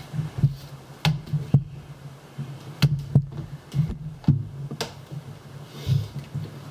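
Hands working at a taped package, picking at the tape: scattered sharp clicks and taps, about eight in all, over a low rumble of handling noise.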